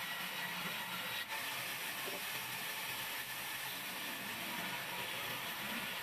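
Large sawmill band saw ripping a live-edge wooden plank along its fence: a steady hiss of the blade cutting through the wood.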